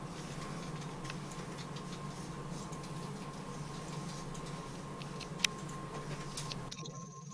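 Steady low hum with a thin steady high tone, and scattered small clicks; one sharper click about five seconds in.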